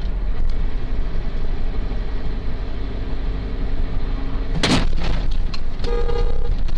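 Steady road and engine rumble heard inside a car's cabin. About two-thirds of the way through comes one loud, sharp crash as an oncoming car strikes it.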